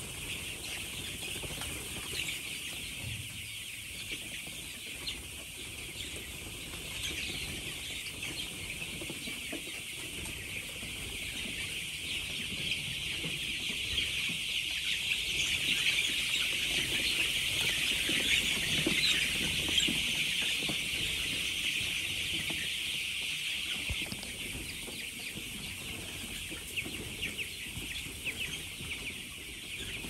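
A dense flock of hundreds of young chicks peeping continuously, a high-pitched chorus of overlapping calls that grows louder toward the middle and eases off near the end.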